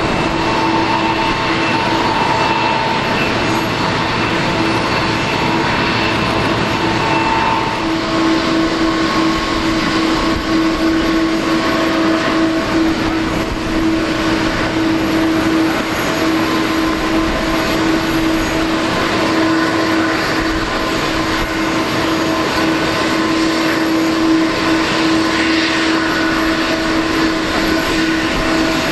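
Jet engines of a Boeing 777-300 airliner running, a loud steady noise with several held whining tones that come and go slightly over the stretch.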